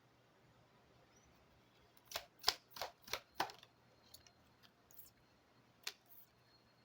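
Lenormand cards being handled and laid down: a quick run of about five sharp snaps and taps about two seconds in, then a single tap near the end.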